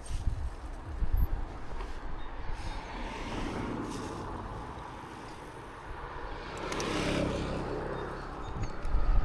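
Mountain-bike riding noise: wind buffeting the microphone and tyres rolling over the trail, with a few low knocks. The noise swells twice and eases between.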